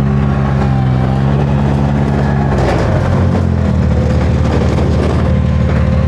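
Ventrac compact tractor engine running under load as it pulls. Its note changes about halfway through.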